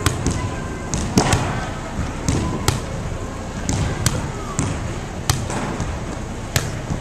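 Volleyballs being struck and bouncing on a hardwood gym floor: a dozen or so sharp thumps at irregular spacing, the loudest about a second in.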